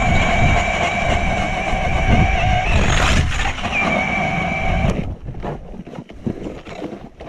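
An engine running with a steady whine for about five seconds, then dying away.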